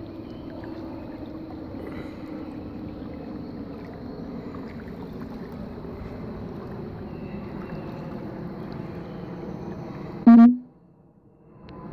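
Steady rush of flowing river water. About ten seconds in, a short, loud pitched tone cuts in; the sound then drops away almost to quiet for about a second before the water noise returns.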